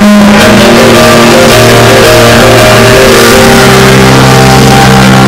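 A live folk-rock band playing the instrumental introduction of a song, with guitar and long held notes and no singing, recorded very loud.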